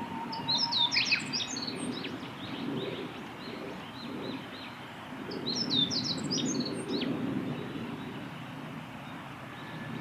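Male meadow bunting singing: two short, quick songs of high chirping notes, the first about half a second in and the second about five and a half seconds in.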